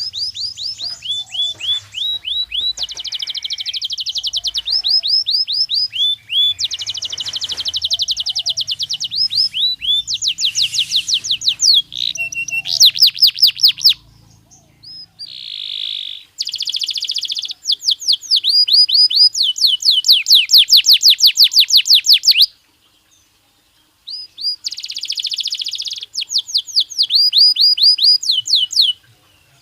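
Belgian canary singing: a run of fast trills, each phrase a rapid string of repeated high sweeping notes, changing to a new trill every few seconds with short pauses between phrases and one longer pause past the middle.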